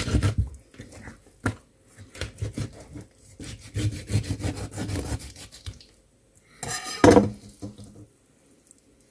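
A knife sawing back and forth through a chum salmon along its backbone on a wooden cutting board: a run of short, repeated cutting strokes, with one louder scrape about seven seconds in.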